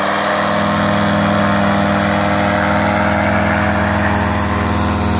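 Powered paragliding trike's engine and propeller held at half throttle for the launch run, running steadily at one pitch as the wing inflates overhead.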